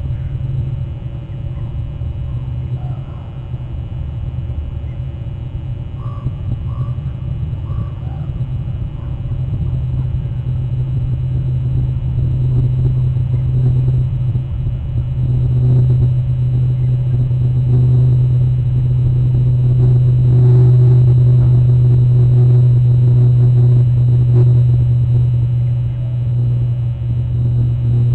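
A steady low rumble that grows louder about halfway through, with a few faint crow caws in the first several seconds.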